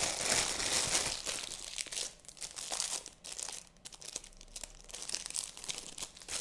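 Thin clear plastic packaging bag crinkling and rustling as it is opened and a makeup brush is taken out. The crinkling is dense for the first two seconds, then thins to scattered crackles.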